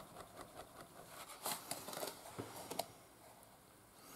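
Faint, rapid, rhythmic flapping of a folding hand fan waved close to the face, about five soft ticks a second, with a few sharper clicks and rustles in the middle.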